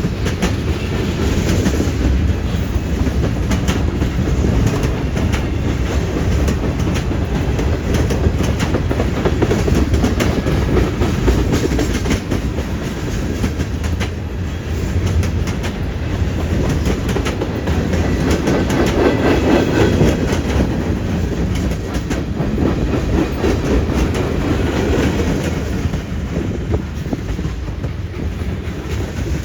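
Freight train rolling past with a steady rumble, its wheels clacking sharply and often over the track joints.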